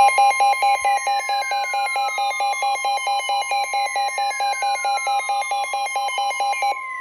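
NOAA Weather Radio warning alarm tone, a steady single tone, held under a rapidly pulsing electronic alarm beep and a falling siren-like whoop that repeats about every three seconds. The beeping cuts off near the end while the steady tone carries on. The tone signals that a warning, here a snow squall warning, is about to be read.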